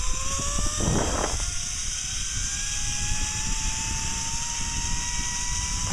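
Zip line trolley wheels running along the steel cable, a whine that climbs steadily in pitch as the rider picks up speed, over a low rumble.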